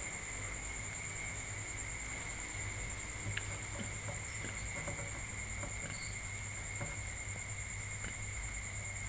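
Insects singing in two steady high-pitched trills over a low steady hum, with a few faint clicks partway through.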